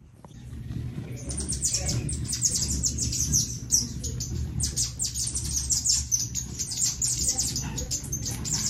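A dense chorus of many birds chirping rapidly, short high chirps falling in pitch packed many to the second, over a steady low rumble. It fades up from quiet over the first second.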